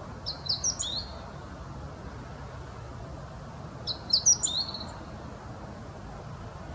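Meadow bunting singing: two short, quick song phrases of high, chirping notes, each under a second long and about three and a half seconds apart.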